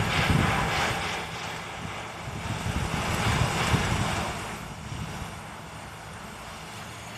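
Wind rumbling on the microphone with a steady hiss over it, louder for the first four seconds or so, then easing.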